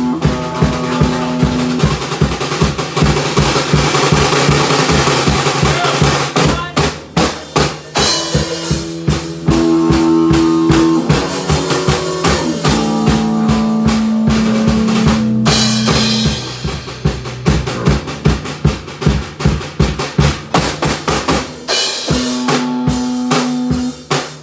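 Rock band jamming live: a drum kit played busily with snare, bass drum and cymbals, over held notes on an electric bass and an electric guitar.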